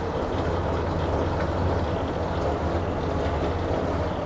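1937 Leyland turntable ladder fire engine's engine idling with its power take-off engaged: a steady, even low drone.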